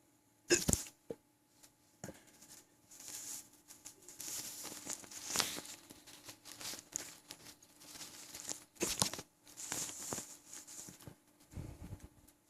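A man's hiccups: two sharp ones, about half a second in and near nine seconds. Between them come rustling and sloshing from his full, bloated stomach, with a low gurgle near the end.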